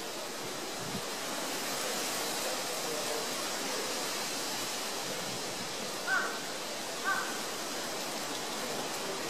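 Steady hiss of outdoor background noise, with two short squeaky calls about a second apart past the middle.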